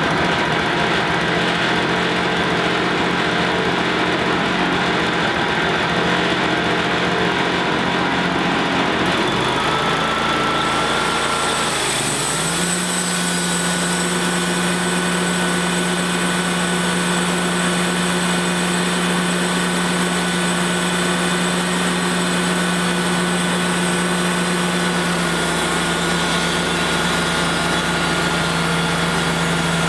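Wood-Mizer LT35HD portable bandsaw mill running: the engine runs steadily, shifts pitch about a third of the way in and settles a little higher, and the band blade then runs steadily through a black walnut log on the first skim cut off the top.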